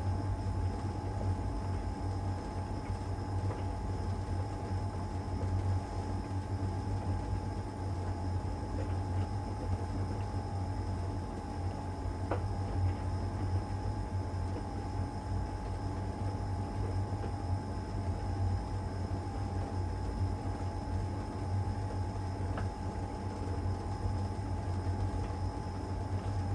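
LG heat pump tumble dryer running steadily in its cupboard-dry stage: a low hum with a steady higher tone over it, and a couple of faint taps from the tumbling load.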